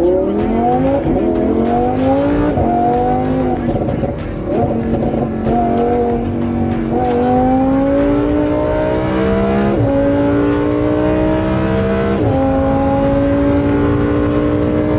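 Lamborghini Huracán LP610-4's naturally aspirated V10 through a Fi valvetronic catback exhaust, accelerating hard: the note climbs in pitch and drops sharply at each of about six upshifts, each gear lasting longer than the last.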